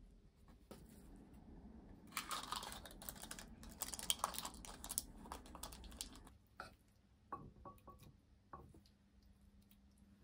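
Crinkling and rustling of cling film and paper baking cups as pastry squares are lifted and pressed into a paper-lined muffin tin, for about four seconds starting two seconds in, followed by a few light taps and clicks.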